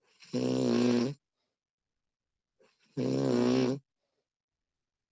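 A person snoring: two snores, each just under a second long and about two and a half seconds apart, with silence between them.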